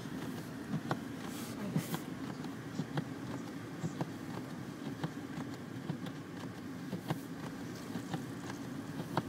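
Car running slowly through deep snow, heard from inside the cabin: a steady low drone of engine and tyres with scattered faint clicks and knocks.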